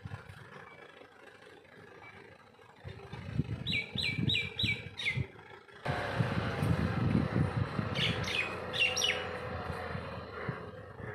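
Birds chirping in short repeated calls, a run of four and then another group a few seconds later, over the low running of a farm tractor's engine. The engine sound jumps louder and steadier about six seconds in.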